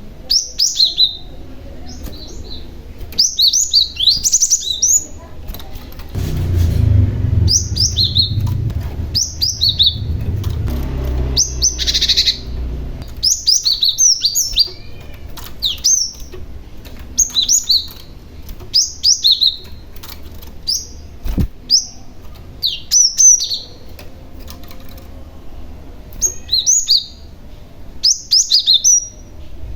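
Young cinereous tit (glatik batu) calling over and over: clusters of short, high chirps about once a second. A low rumble runs from about six to thirteen seconds in, and there is one sharp click about two-thirds of the way through.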